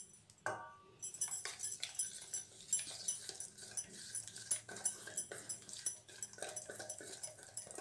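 Silicone spatula stirring thick semolina cake batter in a steel bowl: rhythmic scraping strokes, about three a second, starting about a second in.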